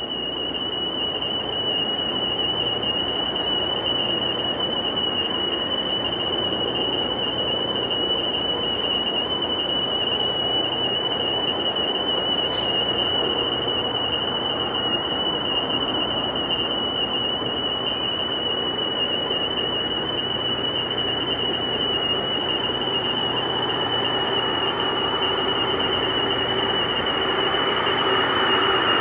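Airbus A330-200's Rolls-Royce Trent 700 jet engines running at taxi power as the airliner turns onto the runway: a steady jet rush with a high, steady whine. It grows slightly louder near the end as the aircraft swings round to face the listener.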